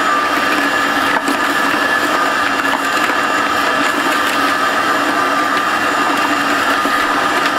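12-gallon shop vacuum running steadily with a high whine, its hose nozzle sucking pulverized IC-chip dust from among steel grinding balls in a vibratory tumbler bowl. There are occasional clicks of grit drawn up the hose.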